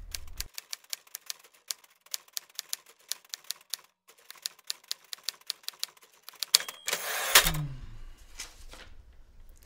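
Fast, uneven keystroke clicks of typing, with a short break about halfway through. Near the end the typing stops, there is a short high ring, then a quick loud swish.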